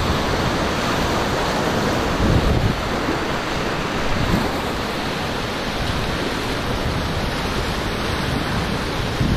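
Fast whitewater rushing and churning around an inflatable kayak in a big-water rapid, a steady loud roar of moving water with a few louder splashing surges, and wind buffeting the microphone.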